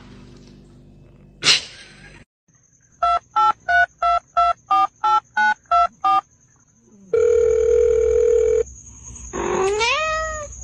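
Telephone keypad tones: ten short beeps about three a second, each at a slightly different pitch, like a number being dialled. They are followed by a steady ringing tone of about a second and a half, then a short sliding pitched sound near the end. A single thump comes before the dialling.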